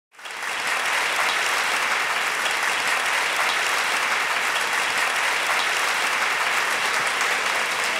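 Audience applauding: a dense, steady clapping that fades in at the start and holds level throughout.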